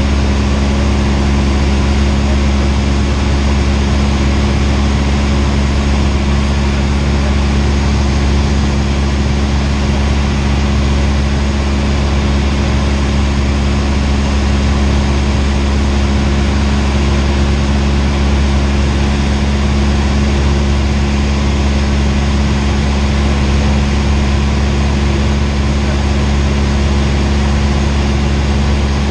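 Cessna 172R's four-cylinder Lycoming piston engine and propeller droning steadily in flight, heard inside the cockpit.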